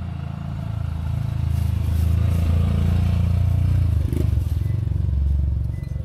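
A motorbike engine running close by, getting louder about a second in and dropping away near the end.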